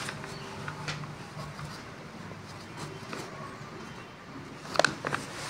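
Faint scratching of writing on notebook paper over a low steady hum, with a brief louder sound near the end.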